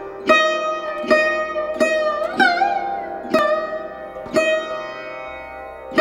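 Background music: a plucked string instrument plays a slow melody, one note roughly every second, some notes bending in pitch, over a steady drone.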